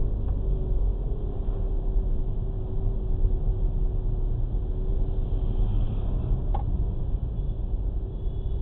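Low rumble of a car driving slowly in city traffic, heard from inside the cabin, with a faint steady hum over it. A single short click comes about two-thirds of the way through.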